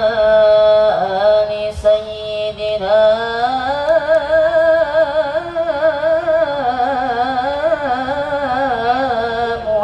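A solo male voice sings a slow, melismatic sholawat line into a microphone over a PA. He holds long notes with wavering ornaments as he stretches out the Arabic words.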